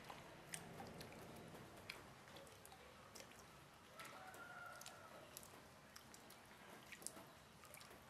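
Faint water drops dripping: small irregular ticks, with a brief faint tone about four seconds in.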